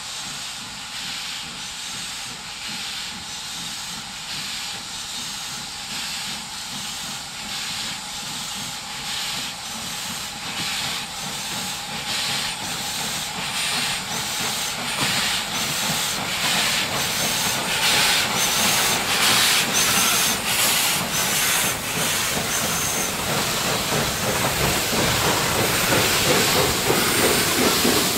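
Two HGS class steam locomotives working a broad-gauge freight train, their exhaust beating in a steady chuff of roughly two beats a second over hissing steam. The sound grows louder as the engines draw nearer and pass.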